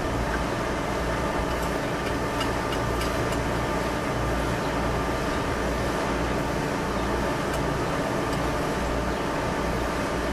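A steady machine drone with a low hum. A few faint metallic clicks come about two to three seconds in and again later, as half-inch all-thread rod is worked through the bolt holes of a steel wheel rim.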